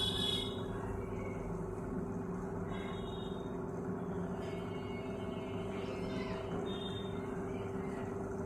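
Microwave oven running with a steady hum and a constant tone. A few brief high-pitched sounds come over it, the loudest at the very start.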